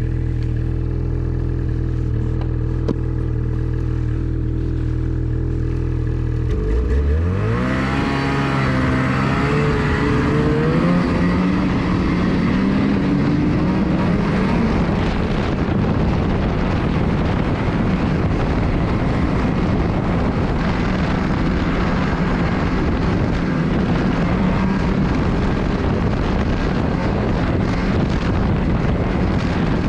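Ski-Doo Renegade snowmobile's 600R E-TEC two-stroke twin idling steadily, then revving up and pulling away about six or seven seconds in. The sled then runs on at speed, the engine note mixed with a rushing noise of track and wind.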